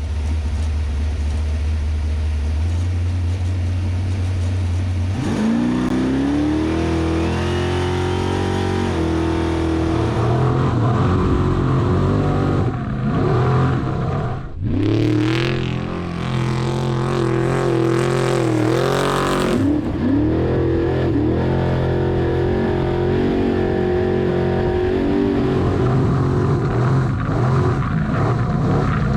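Off-road desert race truck engine running hard. It holds a low, steady note for the first few seconds, then revs up sharply about five seconds in and stays high with rises and falls, with a brief lift off the throttle about halfway through.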